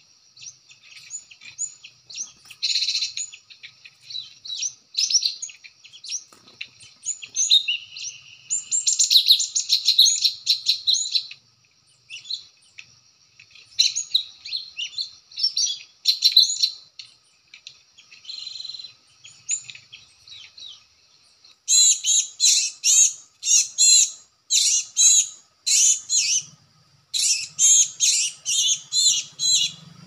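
Cinereous tits (gelatik batu) calling: short, high chirps in scattered bursts, turning into a fast, continuous run of chirps about two-thirds of the way in.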